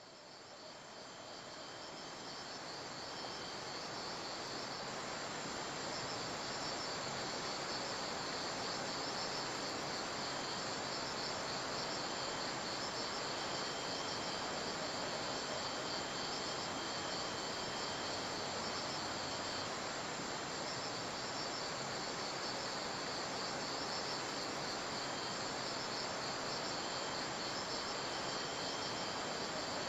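Insects chirping steadily in high thin trills over an even hiss, fading in from silence over the first few seconds.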